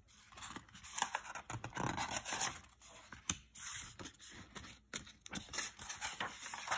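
Paper rustling and scraping in a string of short, irregular scratches: the pages of a picture book being handled and turned.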